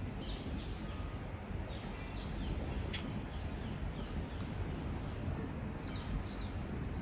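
Small birds chirping in short, quick, falling notes over a steady low rumble of distant city traffic, after a long, steady, high whistle at the start.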